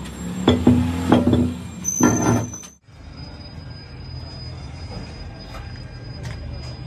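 Heavy steel crankshafts clanking as they are handled and stood on the floor: several loud metal knocks with a ringing tone in the first three seconds. After that a steady low machine hum with a faint high whine.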